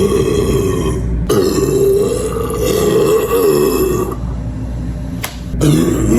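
A woman belching deep and long: one belch ends about a second in, and a second runs for nearly three seconds. After a quieter pause, another starts near the end.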